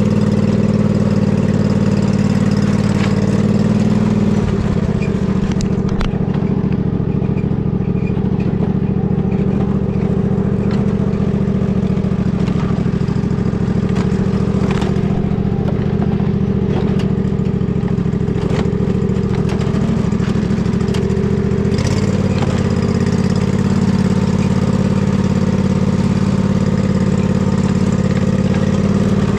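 Husqvarna riding lawn mower engine running steadily, its note changing about four seconds in and changing back about 22 seconds in.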